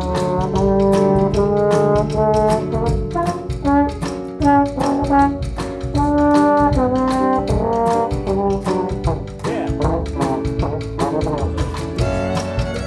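Trombones play a melody in long held notes over a live band of acoustic guitar, piano, upright bass and drums keeping a steady beat.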